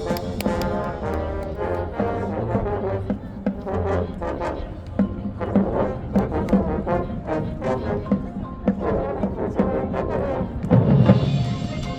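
Marching band playing: brass over a steady beat of drum and percussion hits, swelling to a loud accented chord near the end.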